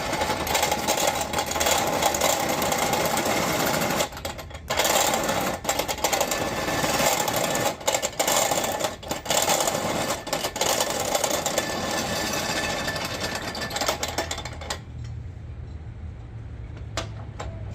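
Rapid, continuous mechanical rattling from a workshop tool or machine, with a brief pause about four seconds in and a few short breaks later. It stops about fifteen seconds in, leaving a low steady hum and a few sharp clicks.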